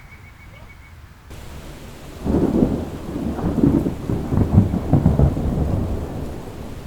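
Thunder rolling: a loud low rumble that swells about two seconds in, wavers for a few seconds and then eases, over a steady hiss.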